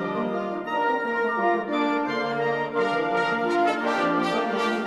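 Instrumental background music: held notes and chords that change every second or so, with no drumbeat.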